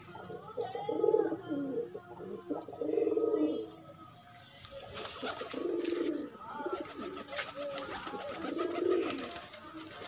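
Domestic pigeons cooing: about four low cooing phrases, a couple of seconds apart, with light clicks between them.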